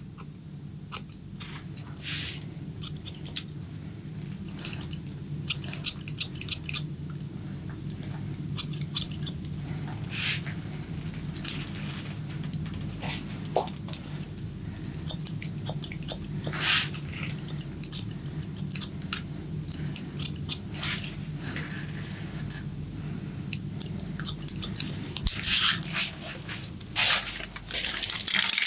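Close-miked barber work on a client's head: irregular crackling and rustling against hair and skin over a steady low hum.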